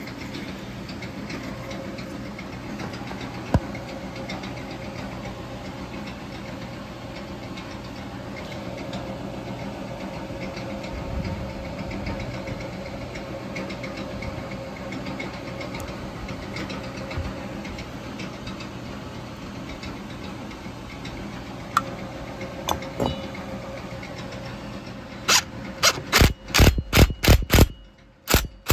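Metal lathe running steadily while it turns an Echo 590 chainsaw cylinder held on a wooden mandrel. Near the end, a handheld power tool with its bit in the spark plug hole starts up in a quick series of loud short bursts, about three a second.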